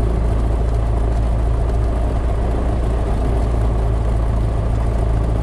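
Single-engine light aircraft's piston engine idling steadily, its propeller turning slowly, a constant low drone.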